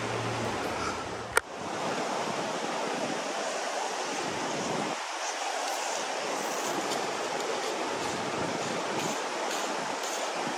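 Shallow river flowing over a gravel bed: a steady rush of water, with one sharp click about a second and a half in.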